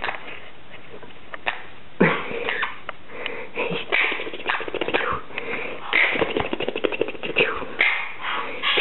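Crimson-bellied conure chattering: a sharp falling squawk about two seconds in, then quick runs of short squeaky chirps and clicks.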